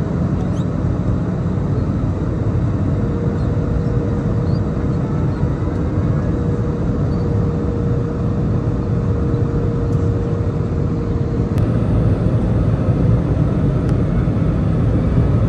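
Steady cabin noise of an Airbus A320-214 heard from a window seat over the wing: the deep, even rumble of its CFM56 turbofan engines and rushing airflow during the descent on approach. A faint steady whine rides on it from about three seconds in and stops near twelve seconds.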